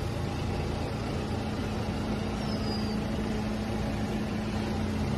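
A steady low rumble of a running motor, with a constant hum that grows stronger about a second in.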